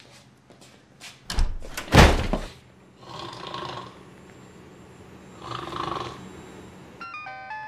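A door shuts with two heavy thumps. Then a woman asleep at a desk snores twice, each snore about a second long. A light, plinking tune of stepping notes starts near the end.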